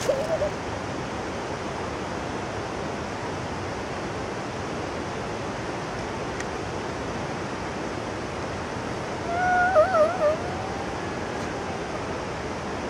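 Steady rushing of river water, with a short wavering whimper about ten seconds in.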